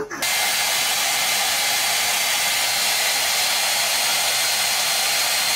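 Handheld hair dryer running steadily, a constant rushing hiss with a faint high whine, starting abruptly just after the beginning.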